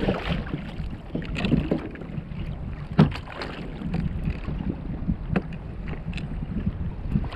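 Wind buffeting the microphone and water splashing and sloshing beside a fishing kayak's hull as a hooked yellowfin tuna thrashes at the surface. A sharp knock about three seconds in, with a few lighter knocks later.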